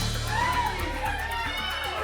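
Game-show music cue with a low bass line, playing while a contestant chooses numbers.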